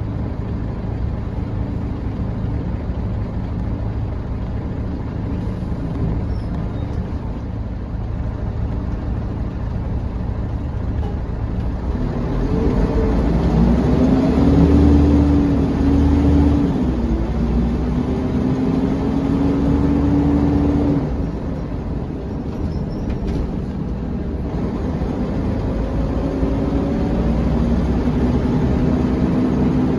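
Cabin sound of a 1998 Volvo B10BLE bus under way: its rear-mounted six-cylinder diesel and driveline hum steadily, then about twelve seconds in it pulls harder with a rising whine. The whine holds until it eases off about twenty seconds in, and builds again near the end.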